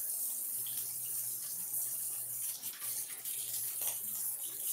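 Rice patties frying in a stainless steel pan: a steady sizzling hiss, with a low steady hum underneath.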